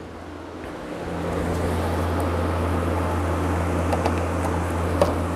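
An electric motor in a woodshop hums steadily. The hum swells in about a second in and then holds, and there is a sharp click near the end.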